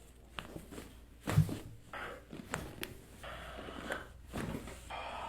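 Chiropractic adjustment: one loud, sharp thump about a second and a half in, with a few smaller clicks and soft rustling around it.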